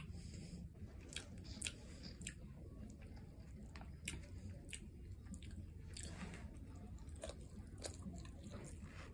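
A person eating rice and tomato stew with meat, close-miked: soft chewing with sharp clicks about every second.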